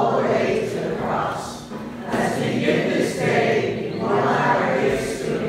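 Congregation singing a hymn together, many voices in unison.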